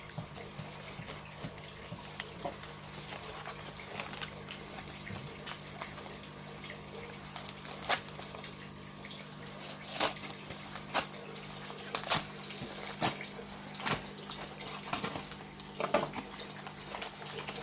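Cardboard parcel being opened by hand: rustling and handling over a steady low hum, then from about halfway, sharp rips and knocks roughly once a second.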